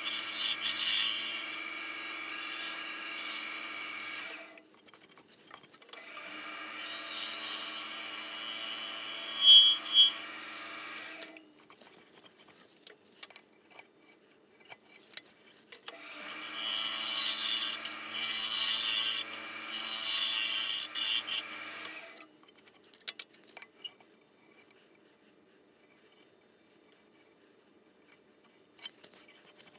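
A gouge cutting the inside of a dry spalted maple bowl spinning on a wood lathe: three long passes of shaving and scraping over the lathe's steady hum, with short pauses between. For the last several seconds it is near quiet, with only a few light clicks.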